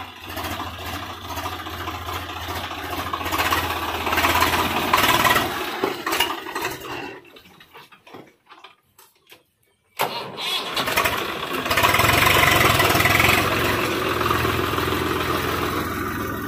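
Swaraj 744 FE tractor's three-cylinder diesel engine running as the tractor drives through mud, a steady low drone that swells and eases with the revs. About seven seconds in the sound drops away almost to silence for a couple of seconds, then the engine comes back in suddenly and loud.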